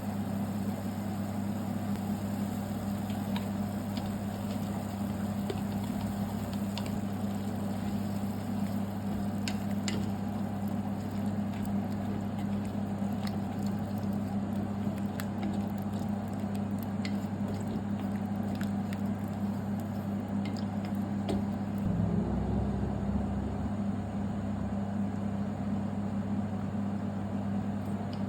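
A steady low hum with scattered faint clicks and ticks, swelling slightly about two-thirds of the way through.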